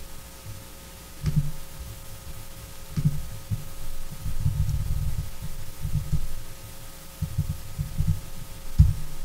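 Typing on a computer keyboard, heard mostly as dull low thumps in irregular runs with a couple of faint clicks, over a faint steady electrical hum.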